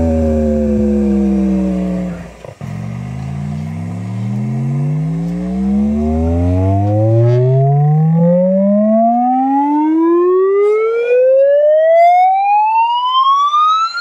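Test-tone frequency sweep played from cassette through a Sharp GF-575 boombox's speaker: a tone with strong overtones glides down to a deep low about two and a half seconds in, then glides steadily up from deep bass to a high whine.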